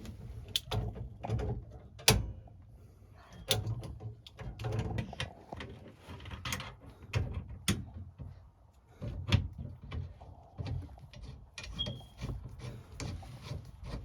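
Irregular clicks, knocks and clanks of hand tools and metal parts being handled during work on a furnace gas valve and its piping.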